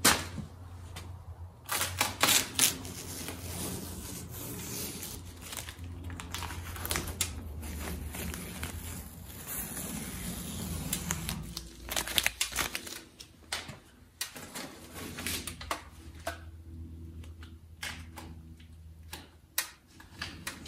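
Yellow masking tape being peeled off a truck cab's drip rail in short, irregular rips, with the crinkle of the pulled tape crumpled in a gloved hand; it is being stripped while the seam sealer is still wet. A steady low hum sits underneath and stops about twelve seconds in.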